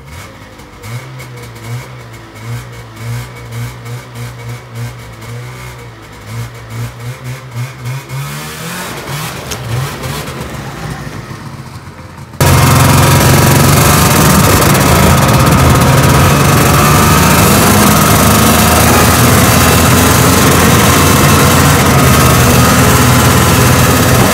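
1979 Ski-Doo Everest 444 LC snowmobile's two-stroke engine idling, then revving up about eight seconds in as the sled pulls away. About halfway through the sound jumps suddenly to a much louder, steady run heard from the driver's seat while riding.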